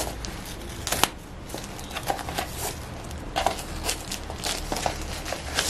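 Paper packaging rustling and crinkling as a small gift box tied with a ribbon is handled and untied, with irregular light clicks and scrapes throughout.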